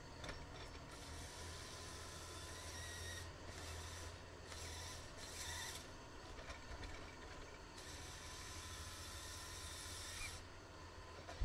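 A John Deere forestry machine's diesel engine running steadily in the background, with a hiss that comes and goes in several stretches of one to three seconds each.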